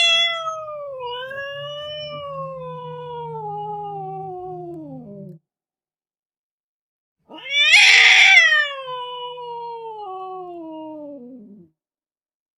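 Domestic cat giving two long, angry yowls, each loudest at the start and falling slowly in pitch as it trails off, with a low rumble beneath; the second begins about seven seconds in.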